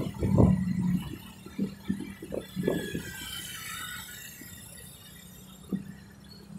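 Road noise from a ride through traffic: wind buffeting on the microphone over a steady low engine hum. The buffeting drops off about a second in, leaving a quieter hum with scattered light knocks.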